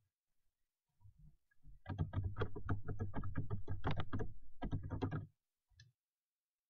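Computer keyboard keys tapped in a fast run, about five to six keystrokes a second, for around three seconds with a brief pause, while text in a form field is deleted and retyped.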